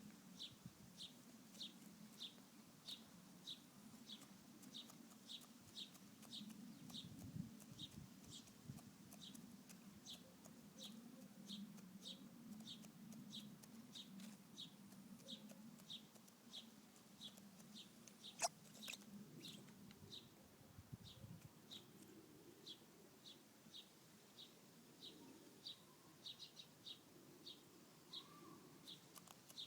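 Faint chickens: soft low clucking, with a thin high chirp repeating evenly about one and a half times a second and a single sharp click about eighteen seconds in.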